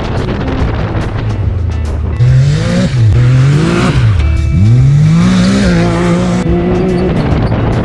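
A Can-Am Maverick X3 side-by-side's turbocharged engine revving hard. From about two seconds in, the pitch climbs and drops several times as the machine slides through dirt-track corners, then holds steady near the end. Background music plays beneath.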